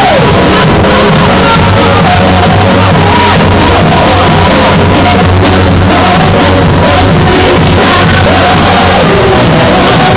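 Live church choir and band playing a loud, upbeat praise song for dancing, voices singing over a steady drum beat.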